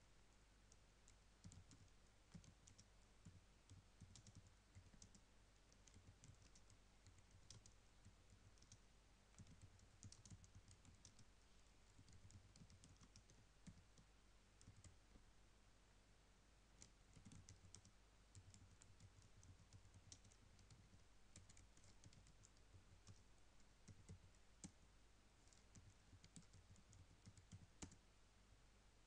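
Faint typing on a computer keyboard: irregular runs of short key clicks with pauses between them, over a low steady hum.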